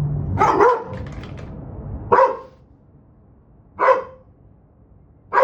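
A big dog barking, four single barks about a second and a half apart.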